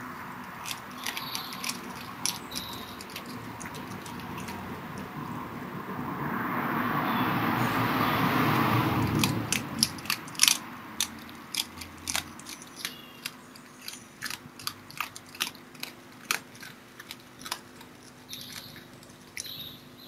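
Red fox chewing and crunching meat from a bowl: a run of sharp crunches and clicks, thickest in the second half. A broad rushing noise swells through the middle and dies away about ten seconds in, and there are a few faint bird chirps.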